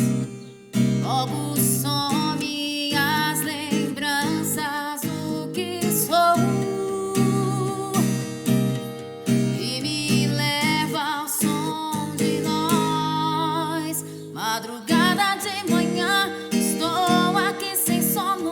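A song: acoustic guitar accompanying a woman singing a slow melody with vibrato.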